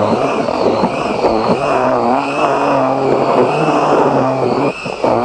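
Cordless drill with a paddle mixer running continuously, churning dry groundbait in a plastic bowl. Its motor whir wavers up and down in speed.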